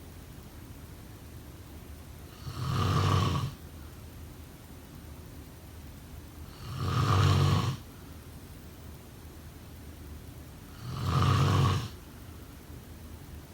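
A sleeping person snoring: three snores about four seconds apart, each lasting about a second with a low buzzing rasp, and a steady faint hiss between them.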